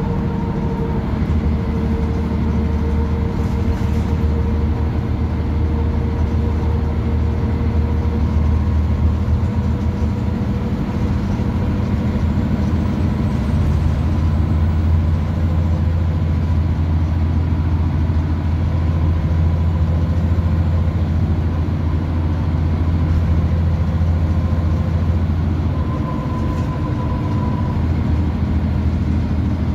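Scania N94UB Omnicity single-decker bus heard from inside the passenger cabin as it drives along: a steady low engine drone with road noise, swelling and easing slightly as it pulls. A thin steady whine rides over it.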